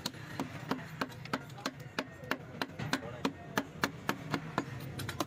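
Quick, evenly spaced wooden taps, about three a second: a wooden rod knocking a piston down through its ring compressor into a cylinder bore of a six-cylinder diesel engine block.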